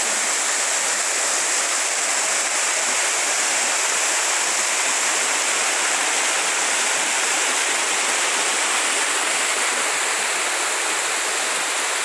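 A small waterfall splashing down a rock face and the shallow stream below it running over stones: a steady, even rush of water.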